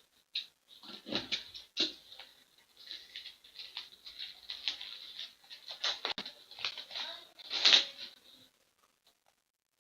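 Trading cards and their packaging being handled: irregular rustling, sliding and scraping, with the loudest scrape about three-quarters of the way through.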